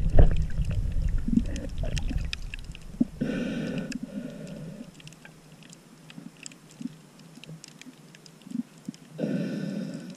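Underwater sound from a camera held below the surface over a coral reef. A muffled low water rumble at the start dies away within about four seconds, leaving a scatter of sharp crackling clicks, with two short rushing bursts, one about three seconds in and one near the end.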